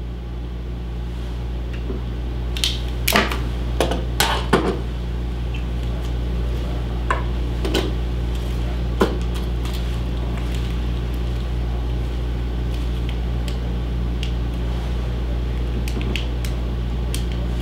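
A steady low hum, with a handful of light clicks and taps from a plastic pipette and sample tubes being handled between about 3 and 9 seconds in.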